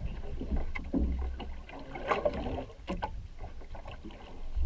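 Water splashing and sloshing in shallow water, with scattered knocks and a low rumble.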